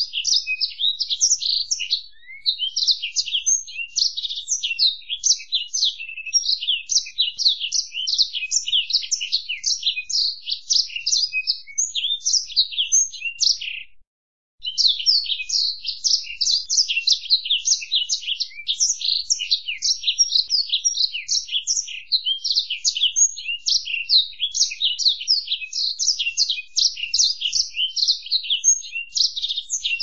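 Blackthroat (black-throated canary) singing a fast, continuous twittering song of quick high chirps and trills, which breaks off for about half a second near the middle.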